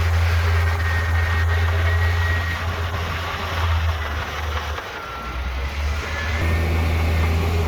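Heavy diesel engine of earthmoving machinery running with a low drone. It eases off a little past the middle and comes back up about six and a half seconds in, with a few faint high squeaks over it.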